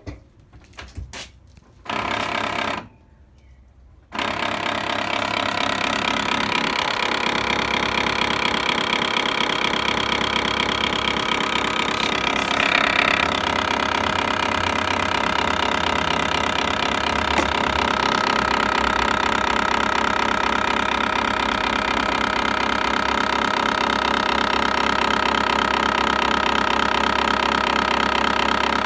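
Continuous rapid buzzing rattle from the front left of a 1998 Volvo V70 2.5 10-valve's engine bay, near the power-steering pump and alternator, starting about four seconds in. It is an unexplained fault noise that comes on at random with the key at the first position, and the owner wonders whether it is linked to the power-steering fluid drained the day before.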